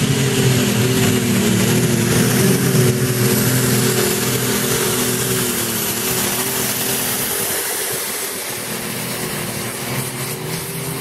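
Turbocharged pulling tractor engine running hard under load as it drags a weighted pulling sled down the track. The sound is steady and slowly fades as the tractor moves away.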